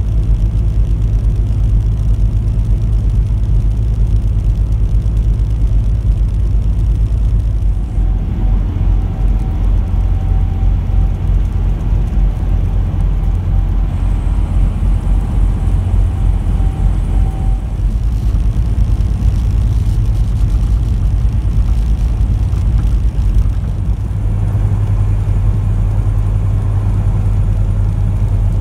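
Steady low engine and road drone inside a truck cab at highway cruising speed. A faint steady whine sits over it for about ten seconds in the middle, and the drone changes abruptly a few times.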